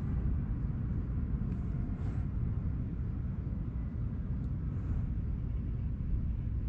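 A steady low rumble with no clear pitch.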